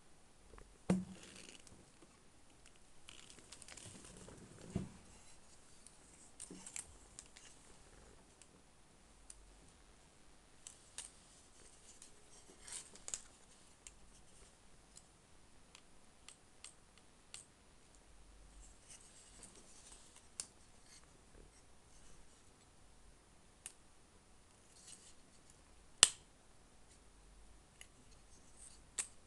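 Plastic clicks and light scrapes of a Transformers Megatron action figure being handled, its joints and parts moved and snapped into place. The clicks are scattered and irregular, with sharper snaps about a second in and a loud one near the end.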